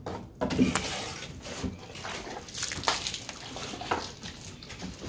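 Very wet, sloppy mortar being worked by hand for bagging brickwork: irregular wet squelches and splashes, with slurry running off the hand into the bucket.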